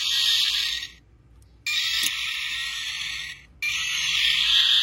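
Knockoff toy dinosaur figure's electronic sound module playing a Godzilla-style roar through its tiny speaker, tinny and harsh with no bass. The roar comes in three blasts of a second or two each, broken by brief pauses.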